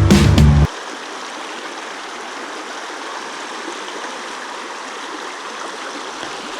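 Steady rush of a mountain stream's running water. Background music cuts off under a second in.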